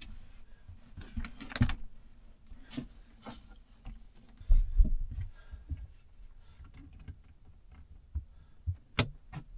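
Scattered clicks and knocks of hand tools and metal parts being handled. A few heavier thuds come about halfway through, and a sharp click comes near the end.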